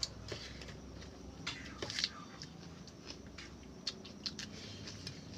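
Scattered small clicks and smacking sounds of people eating a meal of rice and fish curry, with a sharper cluster of clicks about two seconds in.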